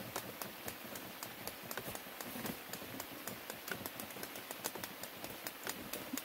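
Rain falling: a steady hiss with many irregular drops tapping close by.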